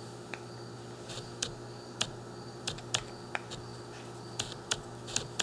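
About ten sharp, irregularly spaced clicks of a metal screwdriver tip against a 3D-printed plastic part as the tip is worked in the part's holes, over a steady background hum.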